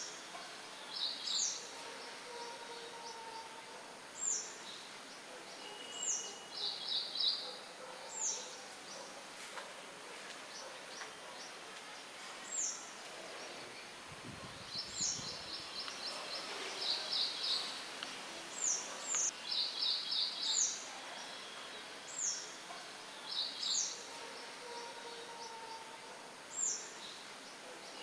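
Birds chirping over a steady hiss of wind: short high notes that sweep downward, repeated every second or two, mixed with brief rapid trills. A short low rumble of wind comes near the middle.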